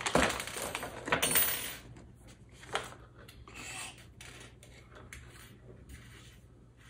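A clear plastic bag of small parts crinkling as it is handled, with the small metal parts inside clinking, loudest in the first two seconds. After that, a few faint clicks and taps of small parts on a tabletop.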